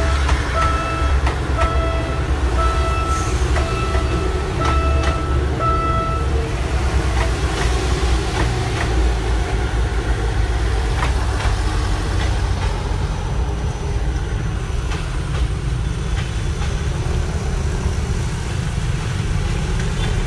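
Diesel multiple-unit passenger train rolling through a level crossing, a steady rumble with wheel clicks over the rail joints. The crossing's warning signal beeps in a regular pulse about every two-thirds of a second and stops about six seconds in.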